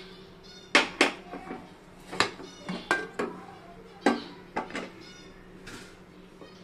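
Aluminium pressure cooker lid being unlocked, lifted off and set down: a series of sharp metal clanks and clinks, some ringing briefly, over the first five seconds.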